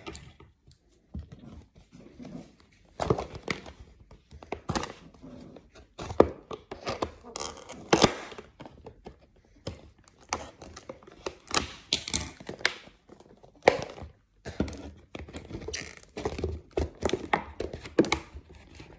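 Hard clear-plastic toy capsule being worked open by hand: irregular knocks, cracks and crinkles of plastic, the packaging slow to give.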